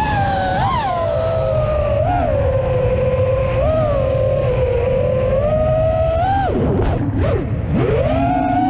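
Brushless motors and Gemfan F4s propellers of an iFlight Cidora FPV quadcopter (Karearea 2306 2850kv motors), heard from its onboard camera. A whine rises and falls in pitch with the throttle, drops sharply about six and a half seconds in and climbs back a second later, over wind rumble on the microphone.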